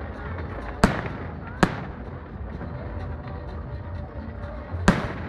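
Fireworks display: aerial shells bursting with sharp bangs, one about a second in, another just after, and a third near the end.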